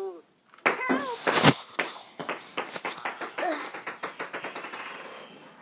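Two sharp knocks about a second in, then a run of light taps and clicks that fade away, with a brief high squeak of a voice among them.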